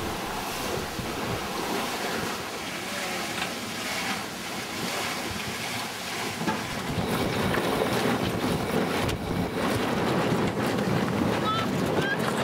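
Sailing yacht under way: water rushing and splashing along the hull with wind, and wind buffeting the microphone. The rush grows louder about halfway through.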